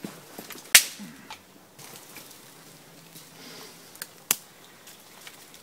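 A few sharp, isolated snaps and clicks from kindling being handled and built up over a small smoking campfire. The loudest comes under a second in and another about four seconds in.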